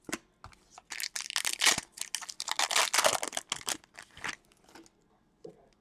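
Foil wrapper of an Upper Deck Trilogy hockey card pack being torn open and crinkled by hand: a few light clicks, then a dense crackle lasting about three seconds.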